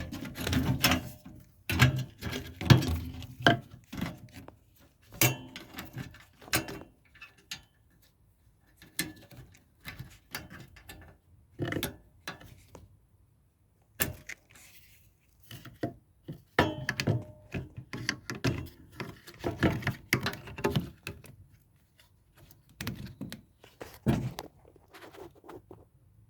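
Irregular thunks, knocks and rattles of washing-machine parts being handled and fitted during reassembly, with short pauses in between.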